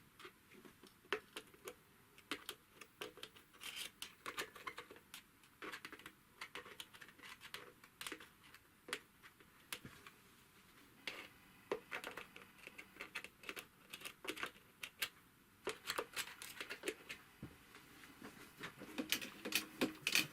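Mechanism of a Typical GC2605 industrial cylinder-arm sewing machine being worked by hand during oiling: faint, irregular clicks and ticks with a few brief squeaks. The machine has been turning stiffly and squeaking because the oil holes from the wick do not reach the parts.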